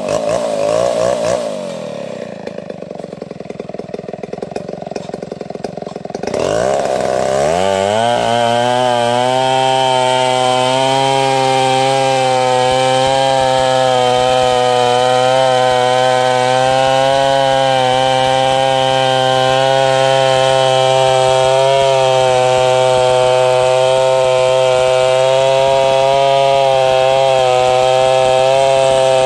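Stihl 070 two-stroke chainsaw. It revs briefly, drops back to a low idle, then about six seconds in revs up to full throttle and runs steadily under load while ripping an ulin log lengthwise into planks.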